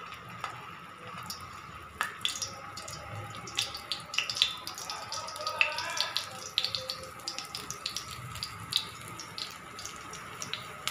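Sweet corn and potato tikki shallow-frying in hot oil on a flat griddle (tawa): a steady sizzle with many irregular small crackles and pops.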